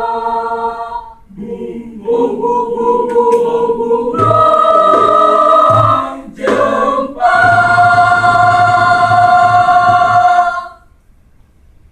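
Choir singing, with two short breaks, then a long held final chord that stops about three-quarters of the way through.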